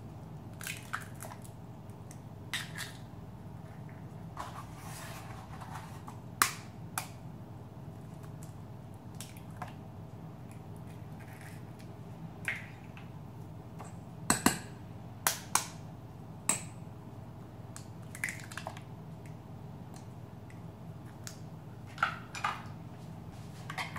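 Eggs cracked one after another over a plastic mixing bowl: a scattering of sharp cracks and taps, in small clusters, over a steady low hum.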